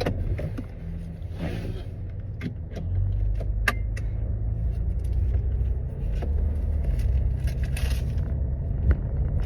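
Low, steady rumble of a car heard from inside the cabin, growing louder about three seconds in, with scattered clicks and a jangle of keys or buckles.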